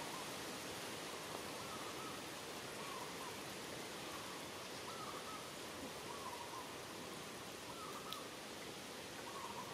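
Steady outdoor hiss with a bird's short call repeating over and over, about once a second.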